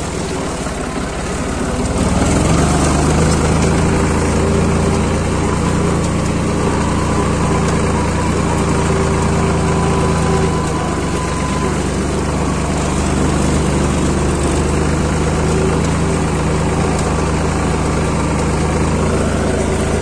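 Tractor engine running steadily as the tractor is driven, a little louder from about two seconds in.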